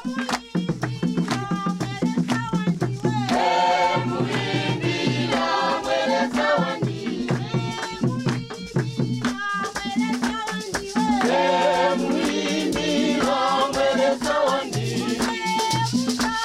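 Music: several voices singing together over rhythmic rattles or shakers and drum strokes.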